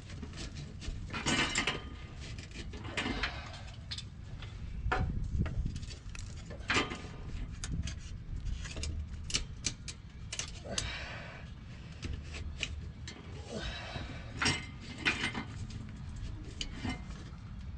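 Scattered metal clinks, knocks and short scrapes of an exhaust pipe and hand tools being shifted and fitted under a pickup truck, over a low steady hum.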